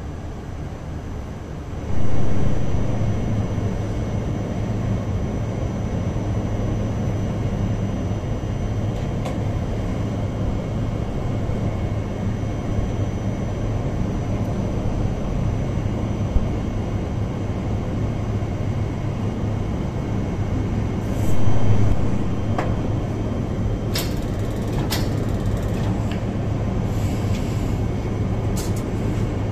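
Biological safety cabinet blower running with a steady airflow hum, stepping up in level about two seconds in. A few light clicks near the end as forceps are handled.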